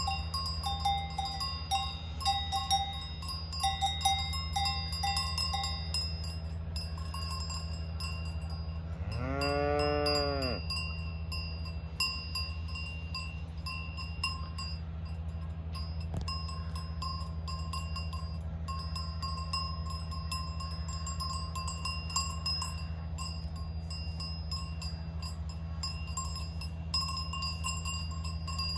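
Cowbells on grazing cattle clanking irregularly, busiest in the first six seconds. About nine seconds in, a cow moos once, a single call of about a second and a half. A steady low hum runs underneath.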